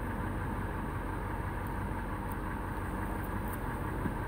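Steady low rumble of an idling engine, with a few faint ticks over it.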